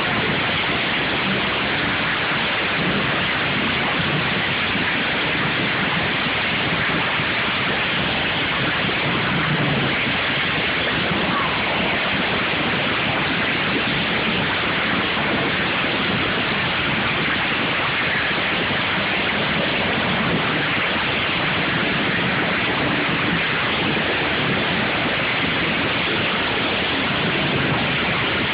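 Many racing lawn mower engines running together, blended into a steady, even roar with no single engine standing out.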